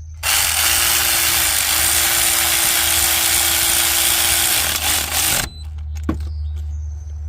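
Handheld electric drill-type power tool running for about five seconds while fastening the new alternator in place. Its motor note dips briefly about one and a half seconds in, then holds steady until it stops.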